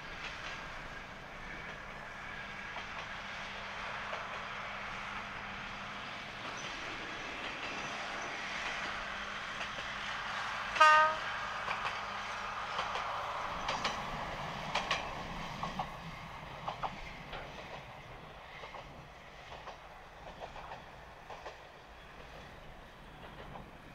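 Diesel train running, its sound building and then fading, with one short horn blast about eleven seconds in. Wheels click over rail joints just after it.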